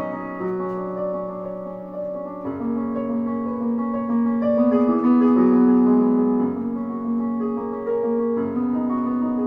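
Solo piano playing a gentle piece: held chords and melody notes that shift every couple of seconds, swelling a little louder about halfway through.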